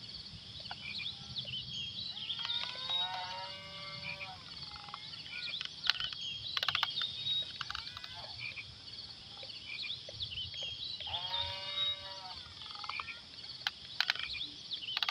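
Two drawn-out animal calls, one a few seconds in and one near the end, over a steady high-pitched background hum, with a few sharp clicks in between.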